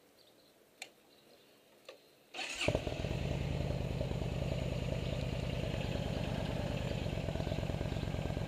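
Motorcycle engine started after a couple of faint clicks: it fires up about two and a half seconds in and settles into a steady idle with an even, low pulse.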